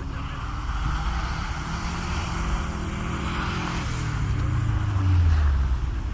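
A motor vehicle's engine passing close by. It grows louder to a peak about five seconds in, and its pitch drops as it goes past.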